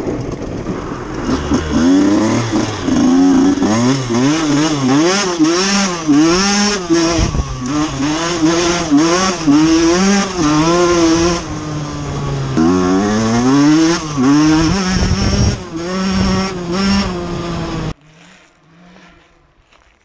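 1996 KTM 125 SX two-stroke single-cylinder engine being ridden hard, its pitch rising and falling again and again with the throttle. The sound cuts off suddenly about two seconds before the end, leaving only faint sound.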